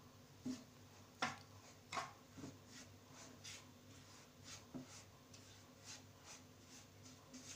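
Faint, irregular scraping and light knocks of a silicone spatula stirring semolina and gram flour as they roast in ghee in a nonstick frying pan, a stroke every half second or so, with a few louder strokes in the first two seconds.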